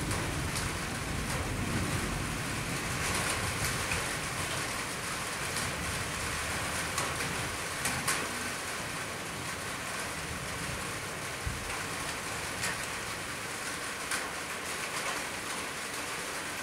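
Steady light rain falling on rooftops, with scattered sharper drip ticks. A low rumble sits under it for the first few seconds.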